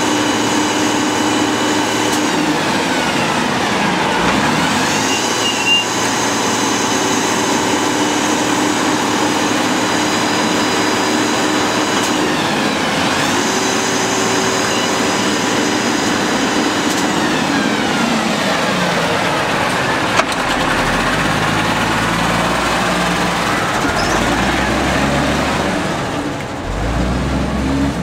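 Cummins L10 diesel engine of an early-1990s WhiteGMC WXLL manual side-load garbage truck running loud and steady, its pitch sliding down and back up a few times as the hydraulic packer cycles yard waste out of the hopper.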